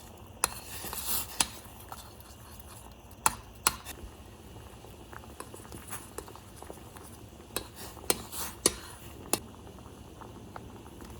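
Kitchen utensils clinking and scraping against cookware: about eight sharp clinks, in small clusters, with brief scrapes between them.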